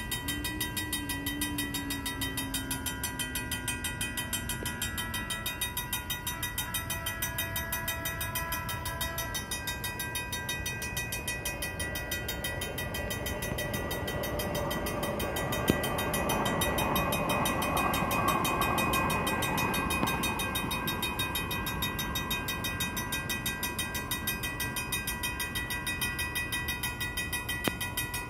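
An old mechanical railroad-crossing bell ringing in fast, even strokes, with a slow freight train at the crossing. About halfway through, a rumble swells up and then fades again.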